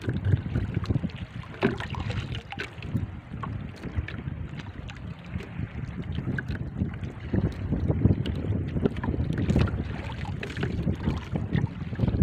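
Wind buffeting the microphone on a small boat at sea: a gusting low rumble with scattered light clicks and knocks.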